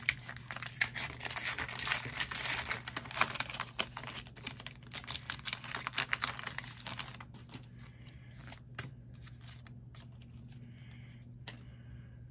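Foil wrapper of a Pokémon trading card booster pack being torn open and crinkled: a dense crackle for about seven seconds, then only a few scattered clicks and faint rustles.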